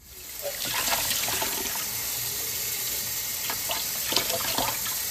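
Kitchen faucet running in a steady stream onto button mushrooms in a plastic tub held under it, water splashing into a stainless steel sink. Small irregular knocks and rustles come from hands rubbing the mushrooms clean.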